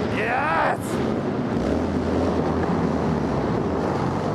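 A pack of Harley-Davidson motorcycles' V-twin engines rumbling together in a tunnel, the low rumble growing stronger about a second and a half in, with wind buffeting the microphone. A shout of "Yes!" comes at the start.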